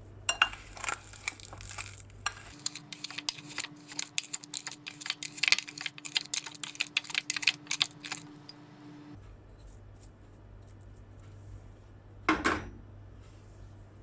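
A metal spoon clinking and scraping against a bowl as sugar is stirred into mashed banana: a rapid, busy run of clinks for several seconds, then quieter, with one brief louder sound near the end.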